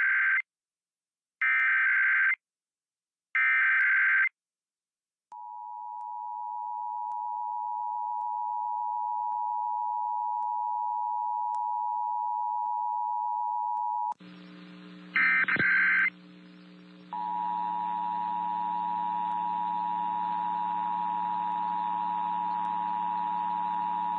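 Emergency Alert System tones: three one-second bursts of the warbling SAME digital header, then the steady two-tone attention signal (853 and 960 Hz) held for about nine seconds. About fourteen seconds in, it cuts to a humming, noisier off-air recording that brings one more data burst and then the two-tone attention signal again.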